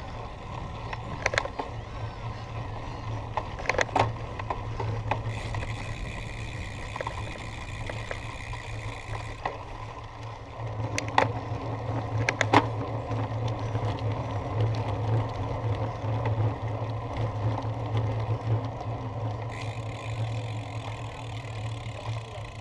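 Bicycle on the move: a steady low rumble, with a few sharp clicks and knocks from the bike.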